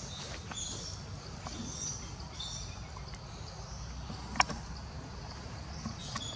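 Outdoor ambience: faint high-pitched chirping over a steady low rumble, with one sharp click about four seconds in.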